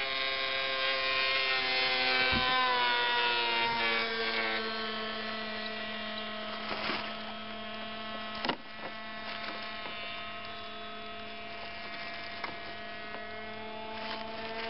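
Small combustion engine of a radio-controlled model airplane droning in flight. Its pitch falls over the first few seconds, then holds a steady buzz. There is a sharp click about eight and a half seconds in.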